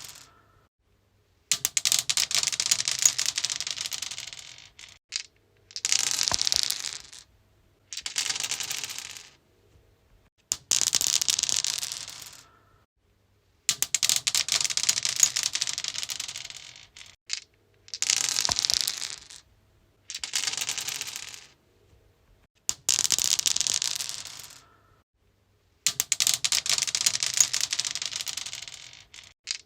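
Dice rolling on a stone surface: about nine separate throws, each a clattering rattle of quick clicks lasting one to three seconds that dies away as the dice settle, with short silences between throws.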